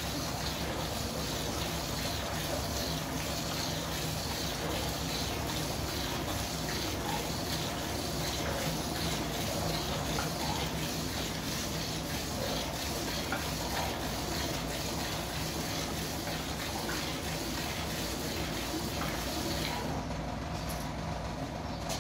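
Hand-milking a water buffalo: streams of milk squirting into an aluminium bucket, going on steadily.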